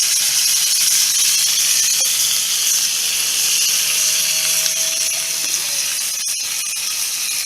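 Burger and onions sizzling steadily in a mess-kit pan and pot over a campfire: a continuous high-pitched hiss, with a couple of sharp clicks about six seconds in.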